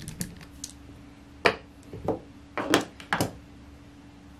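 Handling noise from working on an open laptop: a few faint clicks, then four short, sharp knocks about half a second apart, over a faint steady hum.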